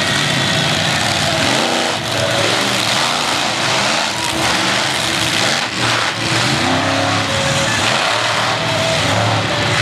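Monster truck engines running loud, revved up and down again and again.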